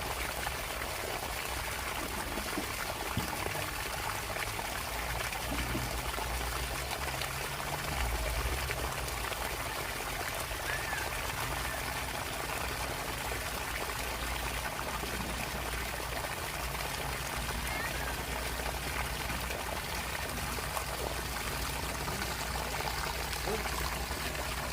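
Water pouring steadily from a sump pump's discharge outlet, a continuous rushing splash.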